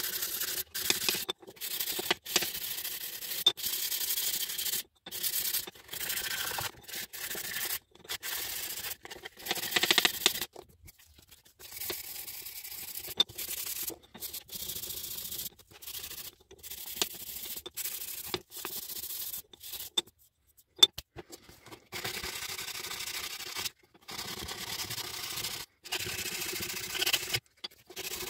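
Sandpaper rubbed by hand over small pieces of mahogany in short back-and-forth strokes, with a couple of brief pauses.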